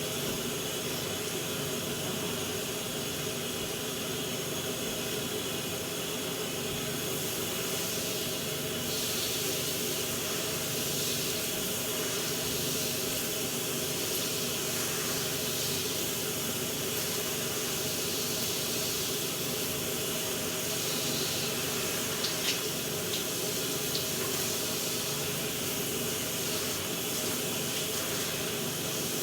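Shower running steadily, a constant spray of water, with a couple of faint taps about three-quarters of the way through.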